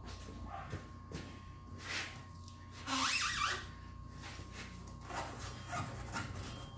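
Rubber excavator track being pulled and pushed by hand onto the undercarriage to seat it on the drive sprocket: scattered rubs and knocks, with a louder scraping rub about three seconds in, over a steady low shop hum.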